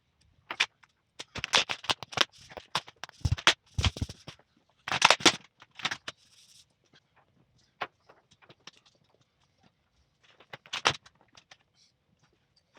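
Stiff clear plastic patterning sheet crinkling and crackling as it is handled and smoothed flat, in irregular bursts of sharp crackles and rustles, densest in the first half with a few more near the end.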